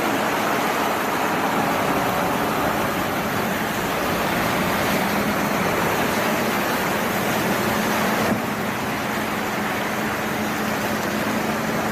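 Steady vehicle and road noise with a low engine drone, changing abruptly a little over eight seconds in.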